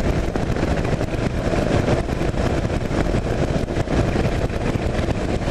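2009 Kawasaki KLR 650's single-cylinder engine running steadily under way, mixed with wind rushing over a helmet-mounted microphone.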